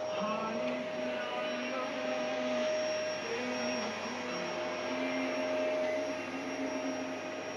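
Vacuum cleaner running, a steady whine over a rushing hiss.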